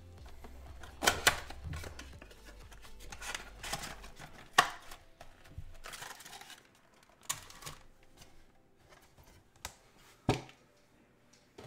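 A cardboard trading-card blaster box being torn open by hand and its foil packs pulled out: a series of sharp rips, crinkles and taps, loudest about a second in and again near the middle.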